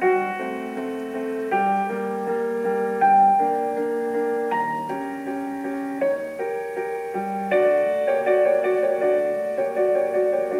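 Slow solo piano music with held chords and a melody, notes changing about once a second.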